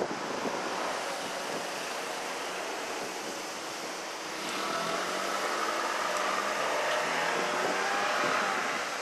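Wind rushing over the microphone. From about halfway through, a car passes, its engine and tyre sound rising and then falling away near the end.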